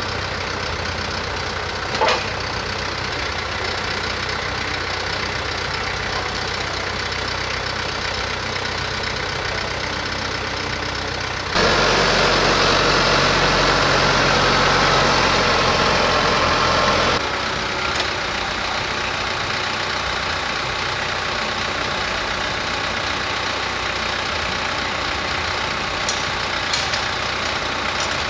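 TYM T474 compact tractor's diesel engine running at idle, steady, turning clearly louder for about five seconds in the middle as the tractor is backed up to a three-point-hitch implement. A single sharp knock is heard about two seconds in.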